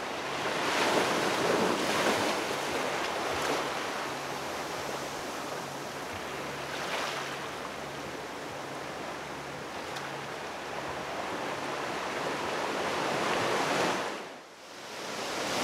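Ocean surf washing in through a narrow channel between rocks, swelling and easing several times. The sound dips sharply for a moment about a second before the end, then rises again.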